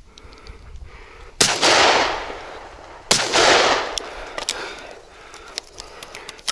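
Two shots from a 1965 IZh-54 12-gauge double-barrel shotgun, about a second and a half apart, each trailing a long echo that dies away. A few light clicks follow.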